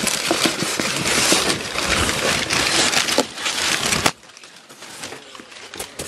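Cardboard shipping box being opened and handled: dense rustling, scraping and crackling of cardboard and packing. It stops suddenly about four seconds in, leaving only faint handling clicks.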